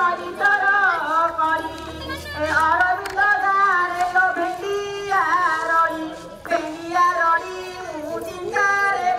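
A high voice singing a melody in short phrases, with many slides and bends in pitch.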